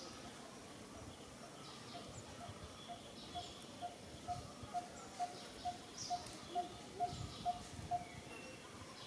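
A bird repeating one short, low, hollow note, about two a second and about a dozen times, growing louder, then stopping. Faint chirps of other birds sound in the background.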